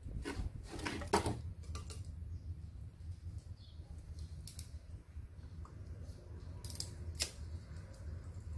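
Scattered small clicks and scrapes of metal parts being handled on a submersible pump as it is reassembled, over a steady low hum.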